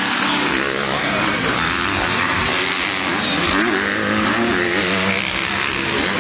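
Motocross bikes racing past at full throttle, several engine notes revving up and down over one another.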